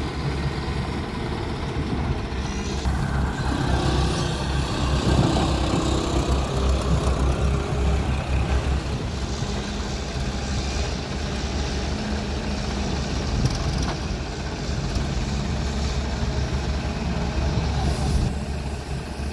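Diesel engine of a Mahindra Arjun tractor running as it pulls its trolley into position, a steady low rumble that grows a little louder for a few seconds about four seconds in.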